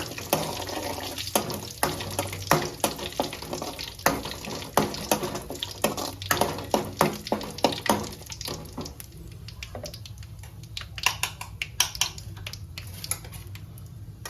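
Curry leaves frying in hot oil in a kadai, sizzling with rapid crackling pops that thin out over the second half.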